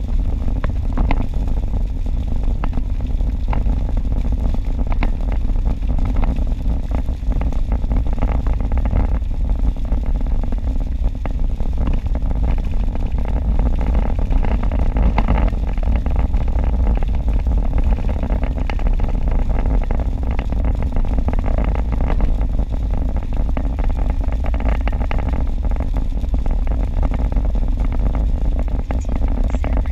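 Steady low rumble of tyre and road noise at highway speed on a rain-wet road, heard from inside the car's cabin, with faint scattered ticks of raindrops on the windshield.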